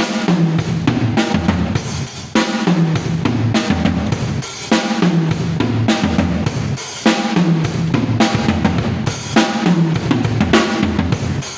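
Drum kit played in a continuous groove: bass drum, snare and cymbals struck in quick, dense succession.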